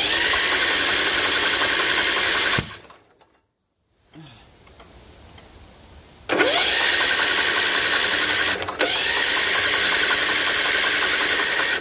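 Electric starter cranking an 18 hp Kohler mower engine primed with starter fluid: a spell of steady cranking of about two and a half seconds, then after a pause a second, longer crank of about five seconds with a brief dip partway, without the engine catching. The owner takes it for an engine with no compression.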